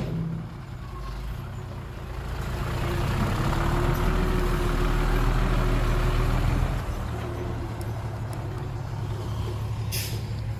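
Heavy diesel engine of earth-moving equipment running, pulling harder and getting louder from about two seconds in, then easing back to a lower working level about seven seconds in. A brief sharp click comes near the end.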